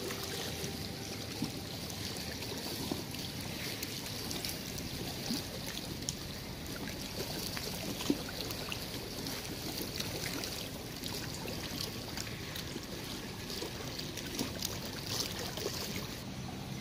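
Small waves lapping and trickling against a stony shore: an even wash of water dotted with many little splashes.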